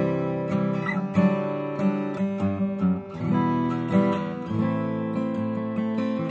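Bourgeois OMS 12-fret acoustic guitar with an Adirondack spruce top and Madagascar rosewood back and sides, played with a steady run of plucked notes and chords ringing into each other.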